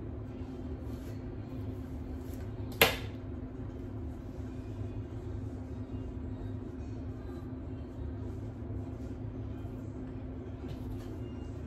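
One sharp knock of a hard object about three seconds in, ringing briefly, over a steady low hum.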